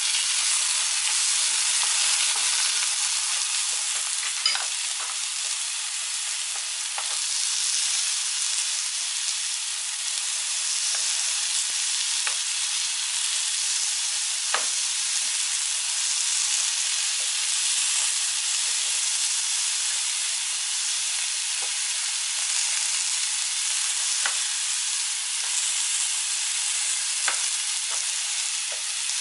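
Zucchini slices sizzling in oil in a frying pan: a steady high hiss with a few faint ticks and pops scattered through it.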